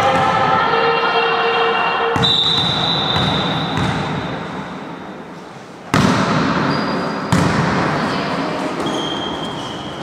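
Indoor volleyball in an echoing gym. Players' voices are heard at the start, then a referee's whistle gives one steady blast of about two seconds to signal the serve. Near six seconds and again about a second and a half later come two sharp smacks of hands on the ball, the serve and the first touch of the rally.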